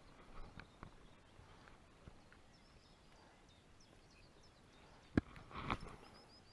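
Quiet riverbank background with faint, short, high bird chirps. About five seconds in, a sharp knock followed by a brief rustle as the spinning rod and reel are handled close to the microphone.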